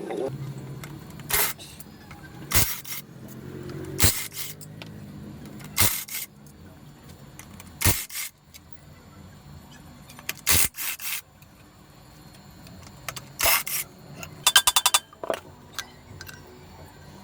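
Hand tools knocking and clicking against parts of a small 100cc motorcycle engine being dismantled. There are single sharp strikes every second or two, and a quick run of about eight clicks near the end.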